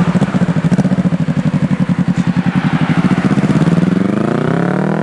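Motorcycle engine idling with an even, pulsing beat, then rising in pitch near the end as it is revved and pulls away.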